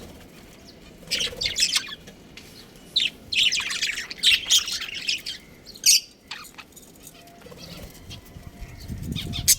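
Budgerigars chirping and chattering in quick high bursts, with short quiet gaps between the bursts.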